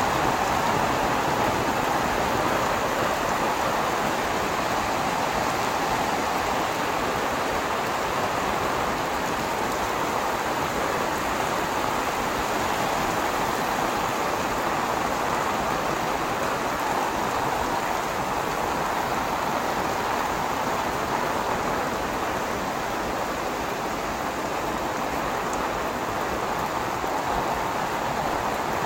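Rain falling steadily and evenly for the whole stretch, hitting an umbrella held overhead and the wet paved street.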